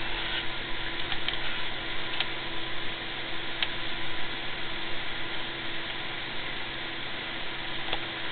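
Steady whirring hiss with a faint steady hum from fans and electrics in a light jet's cockpit with the avionics powered up, and a few light clicks.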